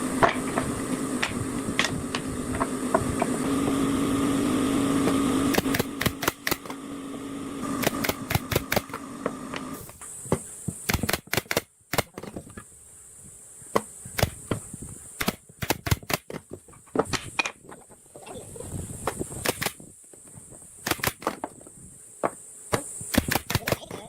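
A small power tool's motor runs steadily for about ten seconds, then stops; after that come many sharp, irregular taps and knocks, typical of hand work on wood.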